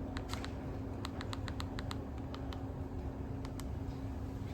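Typing on a computer keyboard: irregular key clicks, with a quick run of them about a second in, over a steady low hum.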